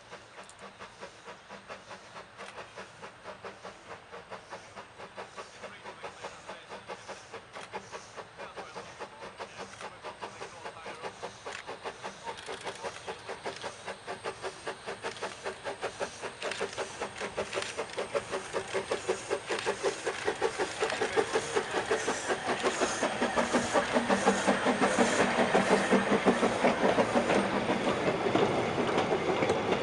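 Narrow-gauge steam tank locomotive Diana working a train up the line, its exhaust beating steadily and growing louder as it approaches. Near the end its wagons roll past close by.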